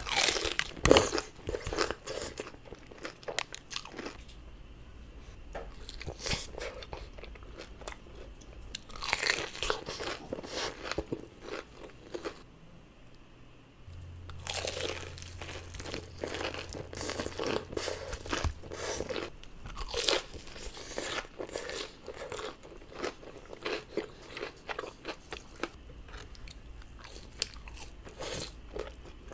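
Crunching bites into crispy fried chicken, followed by chewing. The sharp crunches come in clusters, and the loudest is about a second in.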